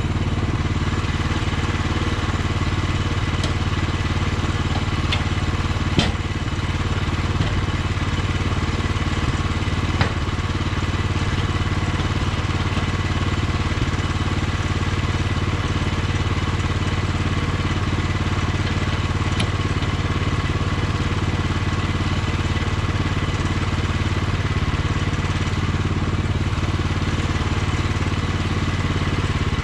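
Portable bandsaw sawmill's engine running steadily, with a couple of sharp knocks about six and ten seconds in.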